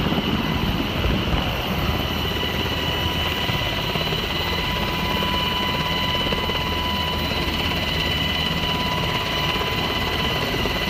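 Coast Guard rescue helicopter running steadily: a dense rotor and engine rumble with a constant high turbine whine.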